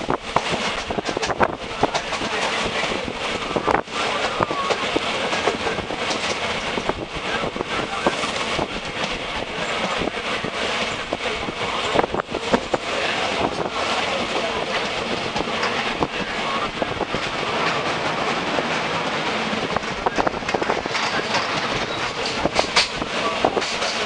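Passenger train running, heard from inside the carriage at an open window: a steady rumble and rush of air, with scattered knocks from the wheels over the rail joints.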